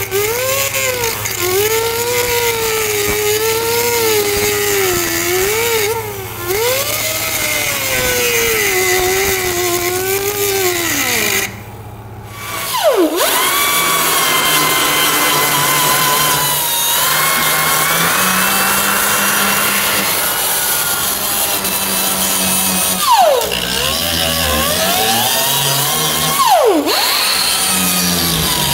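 A power cutting tool slicing through the rusty sheet-steel sill panel, its whine rising and sagging as it bites into the metal. It stops for about a second near the middle, then starts again and keeps cutting, bogging down sharply twice near the end.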